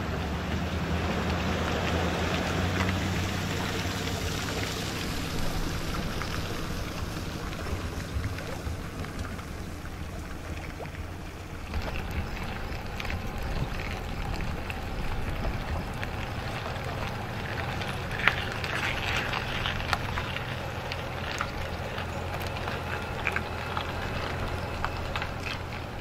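Mercury outboard motor idling steadily on a fishing boat, with wind on the microphone. About twelve seconds in it gives way to another engine idling, with scattered clicks and knocks.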